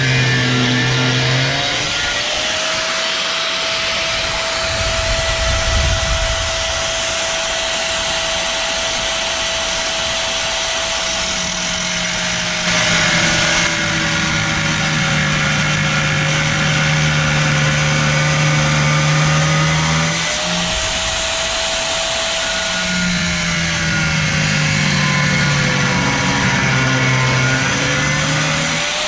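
A compact Black+Decker cut-off tool's thin abrasive wheel cutting into aluminum boat framing: a steady high motor whine over a harsh grinding hiss, the whine sagging in pitch a few times as the wheel bites.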